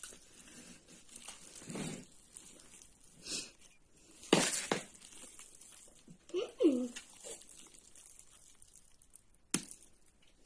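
Sticky yeast dough with raisins and candied fruit being mixed and worked in a bowl: irregular squelching and slapping, the loudest about four and a half seconds in. A brief pitched sound comes about six and a half seconds in, and a single sharp click near the end.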